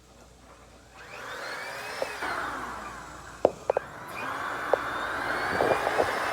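EUREKA Flash corded stick vacuum's motor starting about a second in with a whine that bends up in pitch. It sags around the middle with a few sharp knocks, then picks up again and runs steadily.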